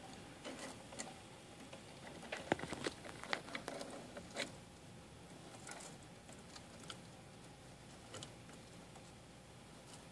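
Light clicks and taps of a hermit crab's claws and shell knocking against an empty seashell as it handles and inspects it. The clicks come in a quick cluster from about two to four and a half seconds in, then only now and then.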